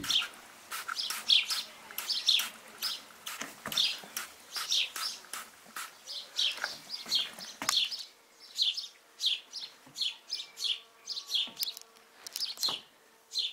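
Hand pump spray bottle squirting in a quick run of short hisses, about two to three a second at first, then more spaced out.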